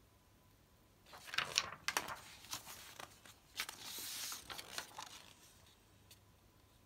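Sheets of paper rustling and crinkling as handwritten cards are handled and swapped: a run of crisp rustles starting about a second in and lasting about four seconds.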